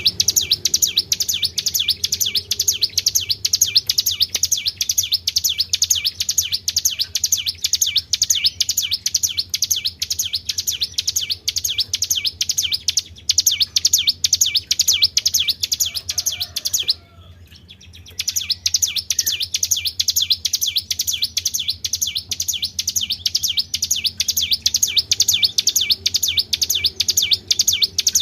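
Tribel songbird giving a long, fast, evenly repeated run of high chirps. The run breaks off briefly about halfway through, then starts again.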